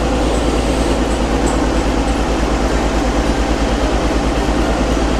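Darjeeling Himalayan Railway toy-train locomotive's engine running steadily with a low, even rumble.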